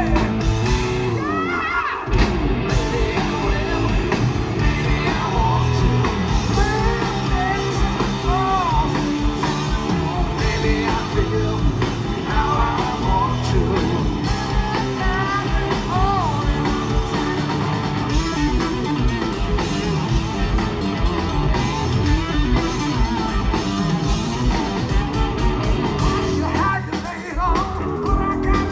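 A live rock trio of electric guitar, electric bass and drum kit playing a hard rock song with male singing, heard from the audience.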